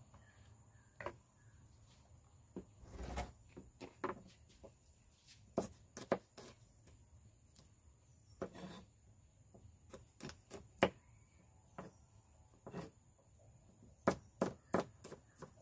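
Irregular knocks and taps of a kitchen knife and utensils on a wooden table and cutting board, with a quick run of knife taps near the end as something is cut by hand.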